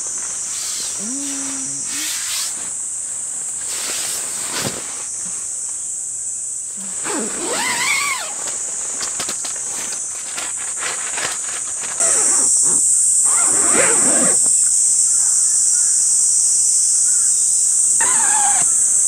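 Steady high-pitched drone of insects in woodland, growing louder about twelve seconds in, with a few short rustles and calls over it.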